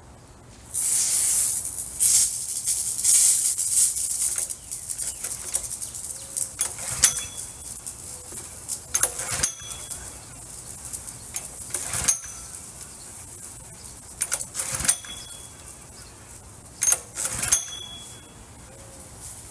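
Water spraying and spattering from the pressure washer's spray wand, a loud hiss that starts about a second in and surges on and off.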